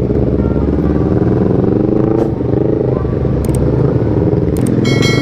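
Motorcycle engines running in slow city traffic, one revving up briefly about two seconds in. Near the end there are two short clicks and then a ringing chime.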